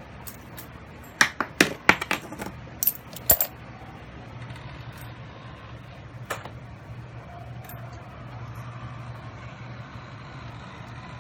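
Metal coins clinking as they are handled: a quick cluster of sharp clinks in the first few seconds and a single clink about six seconds in.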